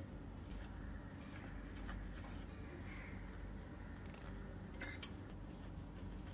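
Crinkling and small clicks of a thin foil wrapper being peeled off and handled, over a steady low hum. About five seconds in there is a sharp double click, the loudest sound.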